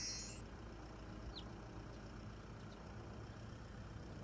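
The last notes of a chiming jingle die away in the first half second, then a faint, steady low rumble of background noise.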